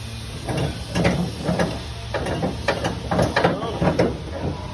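Ratcheting clicks of a cargo strap being tightened down on a flatbed trailer load, several clicks a second, over a steady low hum.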